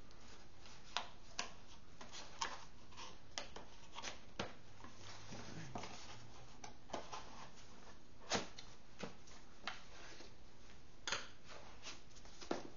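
Packaging handled with gloved hands: light rustling with scattered sharp clicks and taps, as a power adapter is taken out of its box. The loudest click comes a little past the middle.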